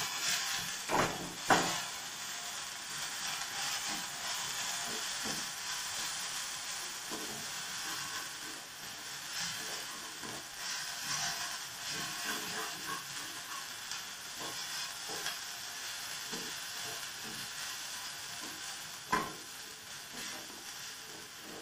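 Sliced onions and spices frying in oil in a nonstick pan, sizzling steadily while a wooden spatula stirs and scrapes them around. A few sharp knocks about a second in and near the end.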